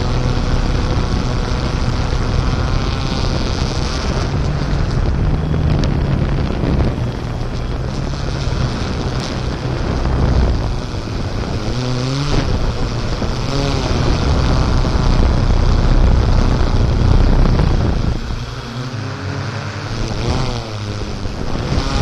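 Off-road vehicle engine running under load, its revs rising and falling several times, with wind buffeting the microphone.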